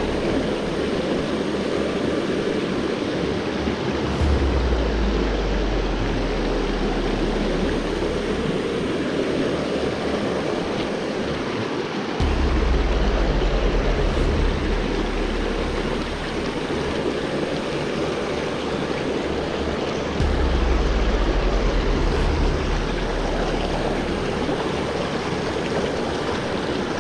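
Steady rush of flowing river water, with wind buffeting the microphone in gusts three times.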